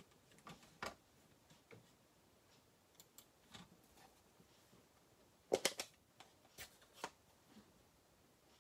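Light clicks and taps of a plastic ink pad case being handled and opened on a craft desk, with a quick run of sharp plastic clicks a little past the middle and a couple of single clicks after.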